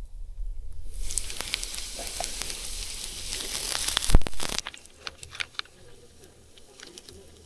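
Sliced onions and chilli sizzling in a camping frying pan on a gas stove, stirred with a spatula. A loud knock comes about four seconds in, and then the sizzle drops away to a few light clicks.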